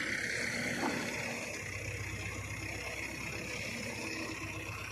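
Mobile crane's diesel engine idling steadily.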